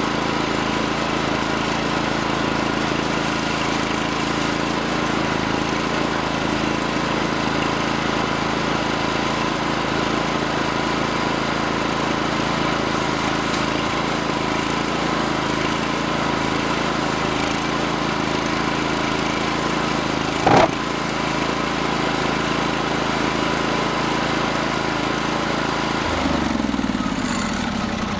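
Portable band sawmill's small gasoline engine running steadily under load as the blade cuts through a log, with a brief sharp noise about twenty seconds in. Near the end the engine's pitch falls as it slows down, as the blade is stopped short by a rise at the end of the log.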